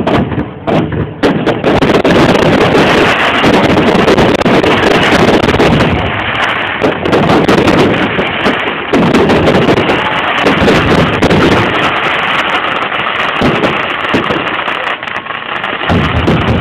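Aerial fireworks going off: a dense, continuous run of bangs and crackling, loud throughout, with a rapid string of sharp cracks in the first couple of seconds.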